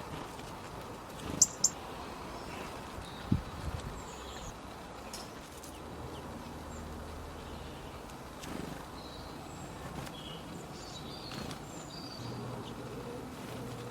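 Birds calling with short, scattered chirps, plus two sharp clicks about a second and a half in and a low thump a couple of seconds later. A faint low hum comes and goes.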